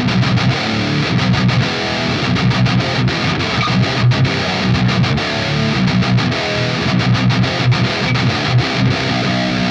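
Harley Benton Pro Series electric guitar played with heavy distortion: a fast metal riff of short, repeated low notes.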